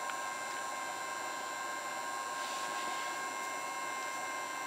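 Handheld heat gun running steadily, its fan blowing a rush of air with a few thin, steady high whining tones over it.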